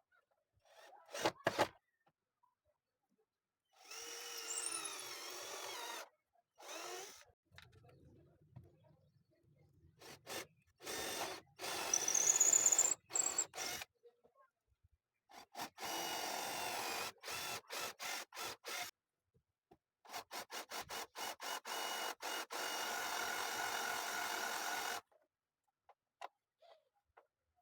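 Electric drill motor run in repeated short bursts, with a rising whine as it spins up. In places the trigger is pulsed rapidly on and off.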